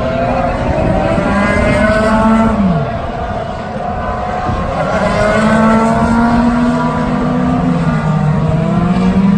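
Several IndyCar race cars' 2.2-litre twin-turbocharged V6 engines running at once. Overlapping engine notes slide up and down in pitch as the cars move past.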